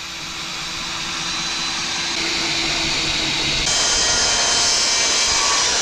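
A Ryobi cordless drill driving a screw into a deck board, its motor running steadily under rising load. About three and a half seconds in, it gives way abruptly to a circular saw cutting a pressure-treated board, which is louder and has more hiss.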